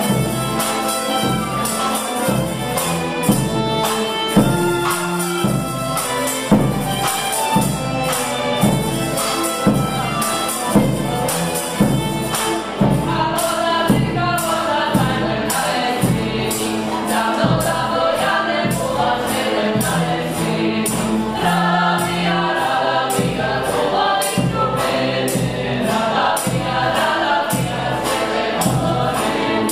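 Background folk music with a steady tambourine beat and a choir singing.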